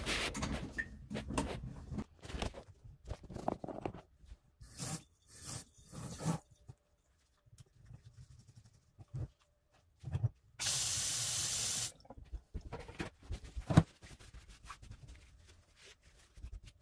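Newly installed pull-down kitchen faucet turned on briefly, water running into the stainless sink for about a second and a half before it is shut off. Scattered clicks and knocks of handling come before it, and one sharp click follows.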